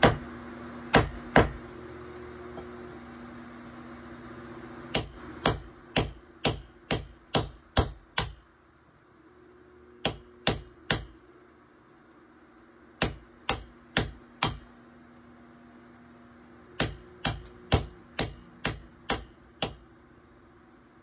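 Hammer striking a steel chisel into a concrete block wall: sharp metallic blows in bursts of three to eight, about two a second, with short pauses between bursts. A faint steady hum runs underneath.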